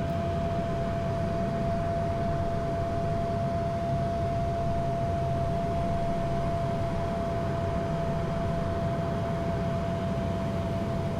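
Steady in-flight cockpit noise of a Pilatus PC-24 business jet: a constant rush of airflow and engine hum, with a single steady high tone running through it.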